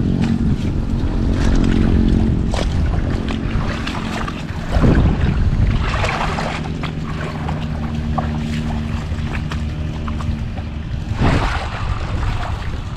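Irrigation water-pump engine running steadily, with wind buffeting the microphone. A few dull thumps, the loudest a little before the middle.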